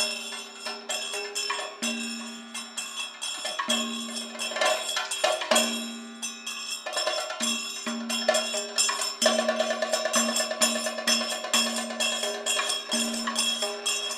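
Kathakali accompaniment music: a dense run of sharp percussion strokes over a steady drone-like tone that stops and starts, with a fast run of rapid strokes about nine seconds in.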